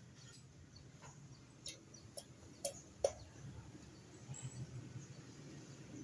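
A handful of sharp metallic clicks and clinks, about five in the first half with the loudest near the middle, over a low steady hum: hand tools or small metal parts being handled during motorcycle engine work.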